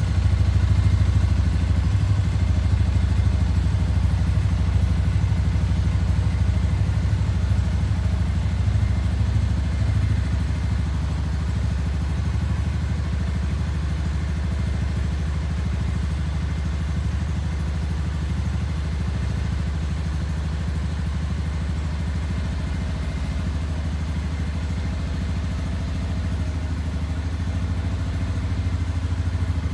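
Shelby Renz 200 motorcycle engine idling steadily, a little louder for about the first ten seconds, then settling to an even, lower idle.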